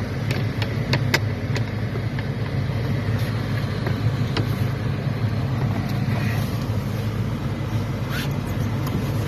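Off-road 4x4's engine running steadily, with scattered sharp knocks and clatters, several in the first second and a half, then single ones about four and eight seconds in.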